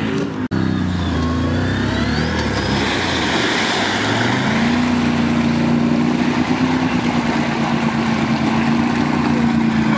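All-terrain vehicle engine revving under load in a mud pit. The revs drop at first and run low for a few seconds, then climb about halfway through and hold high and steady. There is a brief dropout half a second in.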